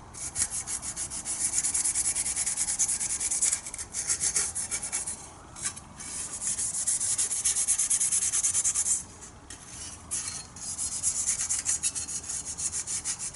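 Green scotch pad abrasive rubbed quickly back and forth over a new steel car body panel, roughening its coating to give the primer a key. Scratchy, hissing strokes come in runs broken by short pauses, the longest about nine seconds in.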